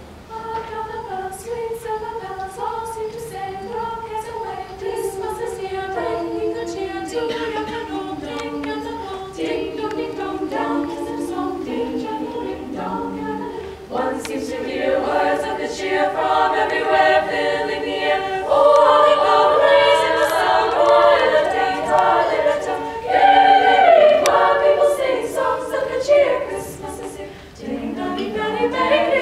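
Small choir of women's voices singing a cappella. It grows louder about halfway through and drops away briefly near the end before starting again.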